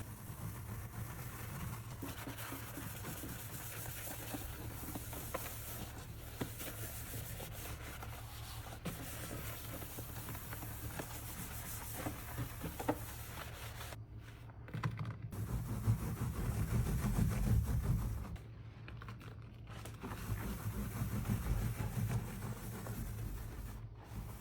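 Scrubbing and rubbing on a kitchen sink being cleaned with soapy dish soap suds, a steady scratchy scouring sound broken by a few short gaps in the second half.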